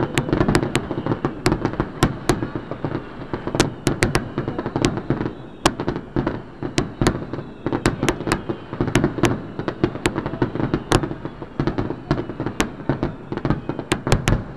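Aerial fireworks shells bursting in a fireworks-display finale: sharp bangs come irregularly, several a second, over a steady crackle.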